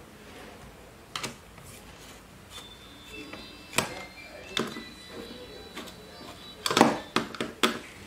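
Screwdriver clicking and tapping against the bottom cover screws of a Lenovo ThinkPad T470s laptop as the cover is screwed back on: scattered sharp clicks, with the loudest cluster of clicks near the end.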